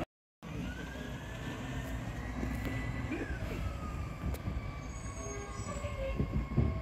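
Rear-loading garbage truck's diesel engine running with a steady low rumble, over a high hydraulic whine that slowly rises and then falls as the packer runs. A few knocks near the end. The sound starts after a brief silent gap.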